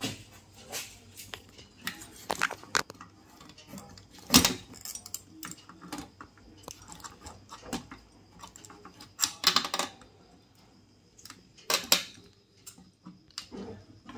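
Soldering-iron tip scraping and tapping on a TV circuit board, with the board handled, while a capacitor is desoldered from it: irregular small clicks, taps and scratchy scrapes in short clusters, the sharpest a little over four seconds in.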